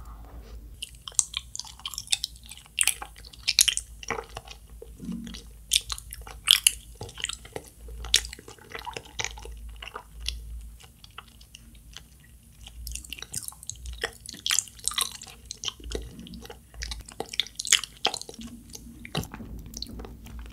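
Close-miked chewing of a juicy Kyoho grape jelly ball: many irregular wet clicks and squishes of the soft jelly in the mouth.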